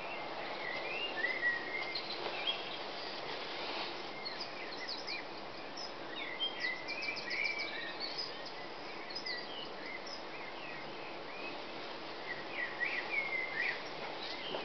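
Dawn chorus: several birds sing and chirp at once, with short whistled phrases and a quick trill of repeated notes, over a steady hiss.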